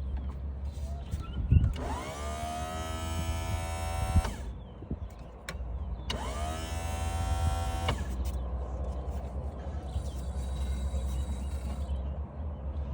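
Electric power-trim motor on the outboard whining in two runs, each rising quickly in pitch, then holding steady before cutting off: the first about two seconds long, the second about a second and a half.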